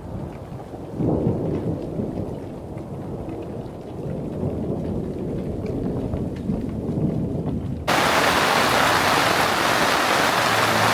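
Thunder rumbling low under falling rain, swelling about a second in. About eight seconds in the sound switches abruptly to a loud, even hiss of heavy rain.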